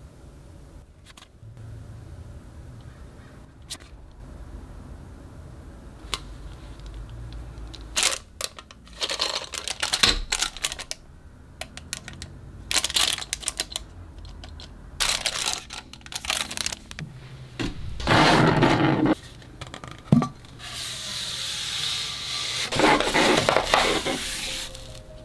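Hands handling merchandise. Small clicks as photocards are flipped give way to bursts of crinkling plastic packaging. Near the end comes a longer paper rustle as a rolled poster is unrolled.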